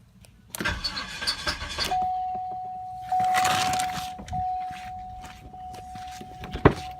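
Rustling and handling noise inside a car, then a steady high-pitched tone that starts about two seconds in and holds, with two sharp clicks near the end.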